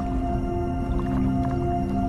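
Background music of long, steady held notes.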